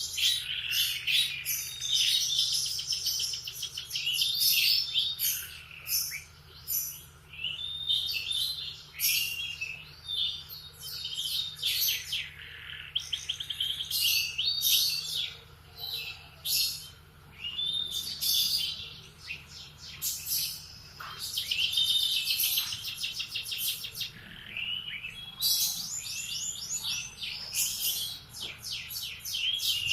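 Domestic canary singing a long, almost unbroken song of rapid trills and chirps, with only short pauses between phrases.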